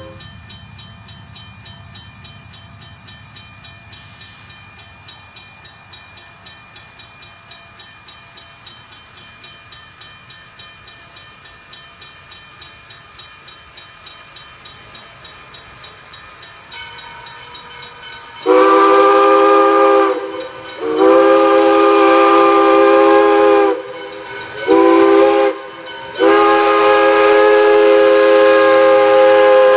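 Pennsylvania Railroad 643, a 0-6-0 steam switcher, approaches with soft, even exhaust chuffs. About two-thirds of the way in, its three-chime steam whistle blows long, long, short, long: the standard signal for a grade crossing. The last blast is still sounding at the end.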